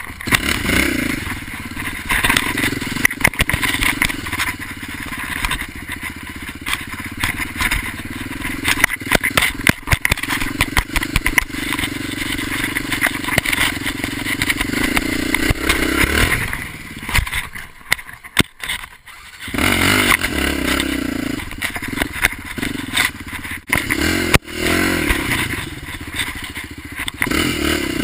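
Off-road motorcycle engine revving up and down while riding on loose gravel, with stones and parts clattering. Past the middle the engine drops low for about two seconds, then picks up again.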